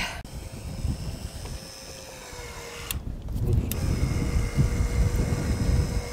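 Handheld cordless power tool running with a steady high whine over a low rumble. The whine grows stronger a little past the middle.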